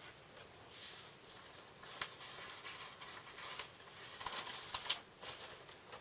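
Vinyl records and their sleeves being handled: irregular rustling and sliding with a few light clicks, the sharpest a little before the five-second mark.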